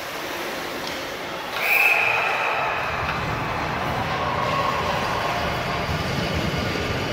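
Court and crowd noise of a youth basketball game in a gym. A sharp high squeal starts suddenly about a second and a half in and holds steady for about a second and a half, with a fainter squeal a few seconds later.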